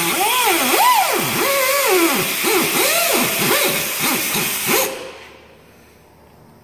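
Pneumatic cutoff tool whining and hissing as it cuts a steel CV boot clamp band, its pitch dipping and rising as the wheel bears on the metal. It stops suddenly about five seconds in.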